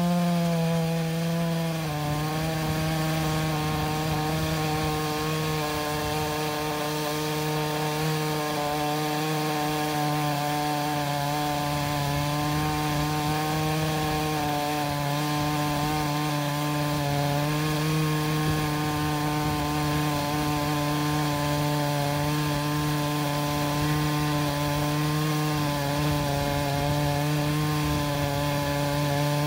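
Chainsaw on an Alaskan chainsaw mill running steadily under load as it rips a large log lengthwise. Its pitch drops a little about two seconds in, then holds even.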